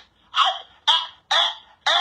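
A man's voice in four short, separate loud bursts about half a second apart.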